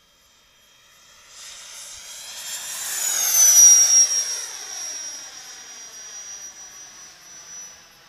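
RC model L-39 jet making a fly-past with a high whine that swells to its loudest about three and a half seconds in. The pitch drops sharply as it goes by, then the whine fades away.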